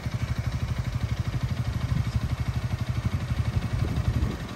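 Honda Rebel 300's single-cylinder engine running at idle with a rapid, even pulse. Near the end the sound swells briefly, then drops.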